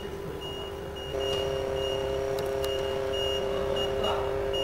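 Steady mechanical hum, typical of the LCD separator machine's vacuum pump, starts about a second in and runs on evenly, under a high electronic beep repeating about twice a second. A few faint clicks of hand tools.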